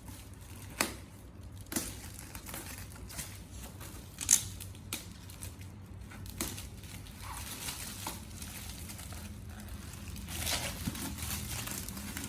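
Gift wrapping paper being torn open and crumpled by hand: irregular rustling with sharp rips, the loudest about four seconds in.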